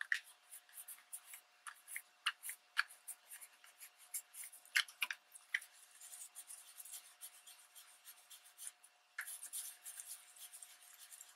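Soft cloth rubbing over embossed magazine paper: a run of quick, irregular scratchy strokes that turns into steadier, continuous rubbing about nine seconds in. The cloth, damp with a water and rubbing-alcohol mix, is lifting ink off the raised embossed areas to distress the image.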